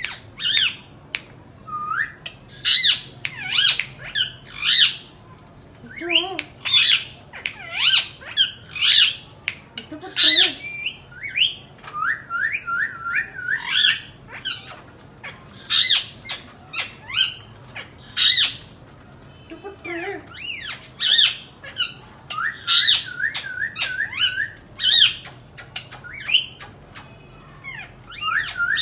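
Indian ringneck parrots squawking: loud, harsh calls in quick runs of three to five, with short rippling chatter between the runs.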